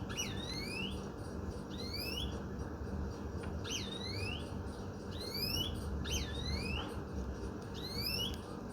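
Street ambience with a steady low rumble, over which a short high whistle-like call sweeps upward in pitch about once a second, sometimes twice in quick succession.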